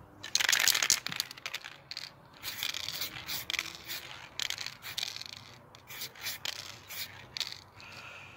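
Aerosol spray-paint can with a high-flow nozzle hissing in short squirts: one longer, louder squirt just after the start, then about ten short bursts in quick succession as paint is dusted onto a plastic blaster part.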